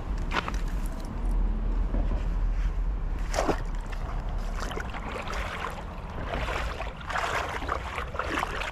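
Wind buffeting the microphone in a steady low rumble, with several short noisy bursts about a third of the way in and again through the second half.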